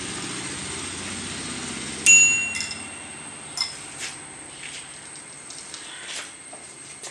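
Bicycle bell rung with one sharp ding about two seconds in, ringing out briefly, followed by a few lighter dings. A low steady motor hum runs underneath and fades away.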